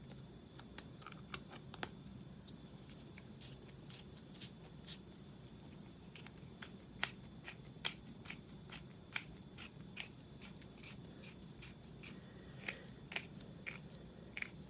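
Hand-twisted spice grinder full of espresso coffee beans being turned back and forth: faint, irregular clicks and crunches as the beans catch in the grinding mechanism.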